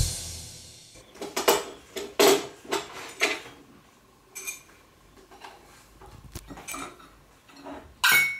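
Ceramic mugs, a bowl and a plate clinking and knocking together, with a metal spoon rattling against the dishes, as they are gathered up and stacked: a run of separate clinks, the loudest near the end.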